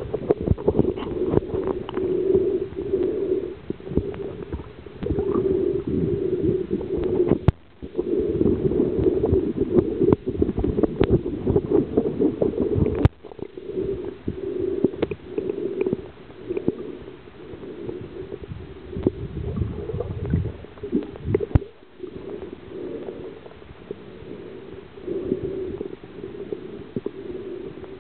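Muffled gurgling and rumbling of water with scattered knocks, broken off abruptly a few times.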